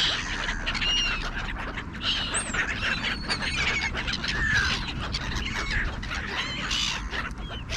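A flock of gulls calling, many short overlapping cries and squeals.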